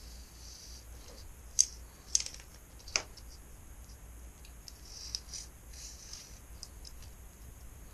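Screen mesh being worked into a door-screen frame by hand: light scratching and rustling, with three sharp clicks between about one and a half and three seconds in.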